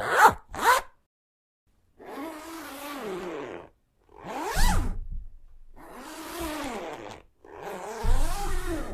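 Zipper being pulled closed and open: two quick sharp zips, then several longer, slower pulls with short pauses between them.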